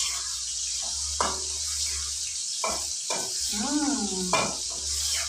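Squid and green chilli sizzling steadily in a wok, the spatula knocking and scraping against the pan several times as it is stirred. A brief hummed voice rises and falls about four seconds in.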